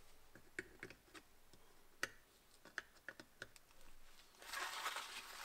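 Needle-nose pliers clicking and tapping against steel drum-brake shoes and return-spring hardware while a spring is being hooked in: about eight sharp, irregular clicks, then about a second of scraping near the end.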